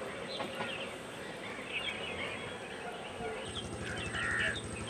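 Birds chirping and calling in outdoor ambience. A low steady hum comes in abruptly about three and a half seconds in.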